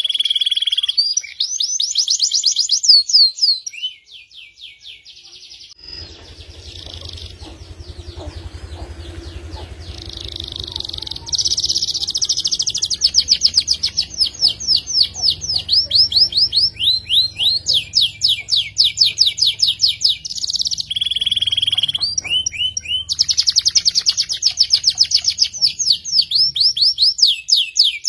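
F2 Yorkshire-cross canary singing long, fast rolling trills of rapidly repeated high notes, with a brief quieter lull about four seconds in. A faint low hum runs behind the song from about six seconds in until near the end.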